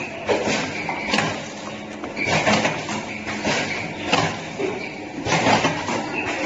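Vertical sachet packing machine running, with a steady mechanical hum and repeated clunks from its moving parts about once a second.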